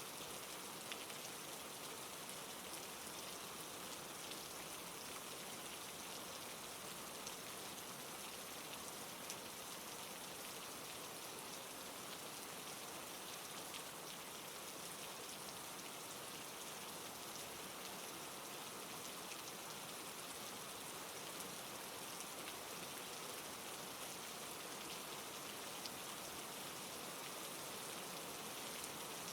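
Steady rain falling, a soft even hiss with scattered light drop ticks.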